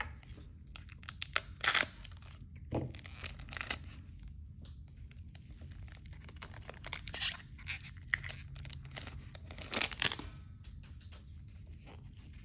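A Pokémon booster pack's foil wrapper being torn open and crinkled, in several short bursts of tearing and rustling.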